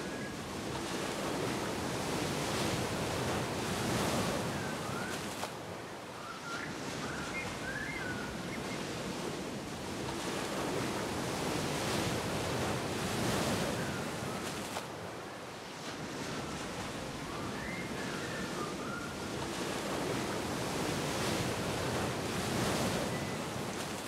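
Ocean surf breaking on a beach, a steady rush that swells and fades about every nine seconds. Faint, short, high chirps come in now and then.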